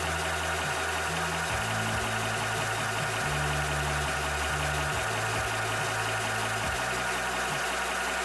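Cobra high-pressure PCP air compressor running steadily while it pumps, with a constant mechanical hum and hiss from the pump and its cooling fan.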